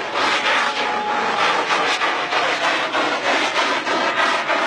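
Large rocket firework's motor giving a steady, loud rushing hiss with a fast flutter as it climbs.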